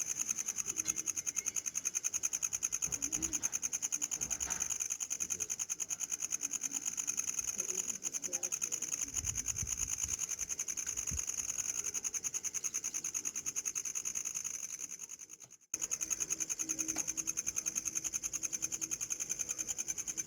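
Small metal puja bell rung rapidly and continuously, a steady high ringing that pulses very quickly and evenly. It fades away about 15 seconds in and starts again at full level half a second later.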